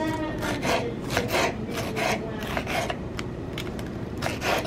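Kitchen knife slicing an orange bell pepper into strips on a wooden cutting board: a steady run of cuts, about three strokes a second, each a short rasp of the blade through the pepper onto the board.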